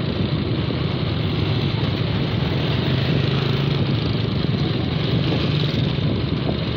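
Small motorcycle engine running steadily while riding, with wind and road noise rushing over the microphone.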